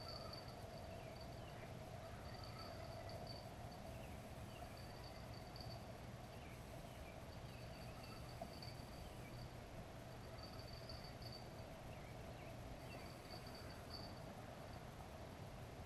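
Faint riverside ambience: an insect trilling in bursts of about a second, repeating every second or two, over a steady low hum, with scattered short high chirps.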